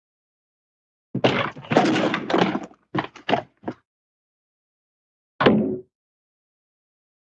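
Hanna-Barbera cartoon sound effects played one after another with dead silence between: a clattering crash of about a second and a half, three short knocks, then a single bang.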